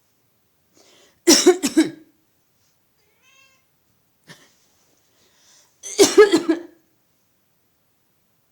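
A person coughing in two short fits of several coughs each, about a second in and again around six seconds in. A cat gives a faint meow between them, answering the coughing.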